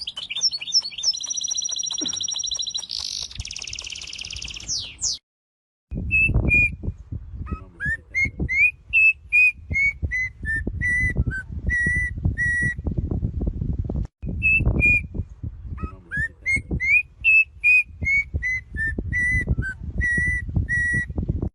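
A bird singing: rapid high trilled notes for about five seconds, then, after a brief break, a clear whistled phrase of rising and falling notes given twice. Loud low thumps and rustling run under the whistled phrases.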